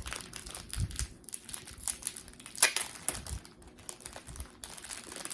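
Stickers and their packaging being handled: irregular light crinkling with scattered small clicks and taps.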